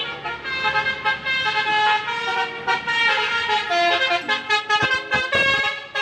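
Indonesian 'telolet' multi-tone bus horn of the Basuri type, sounding a tune of several held notes that change pitch in turn.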